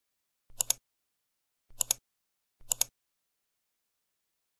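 Three short, sharp double clicks about a second apart, set in digital silence.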